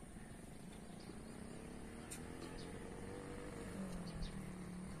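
Faint outdoor ambience: a steady high insect-like trill, a low droning hum that grows from about a second in and bends in pitch near the end, and a few small high chirps.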